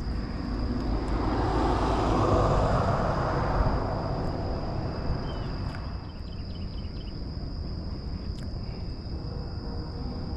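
A distant vehicle passing: its noise swells over the first few seconds and fades away by about the middle.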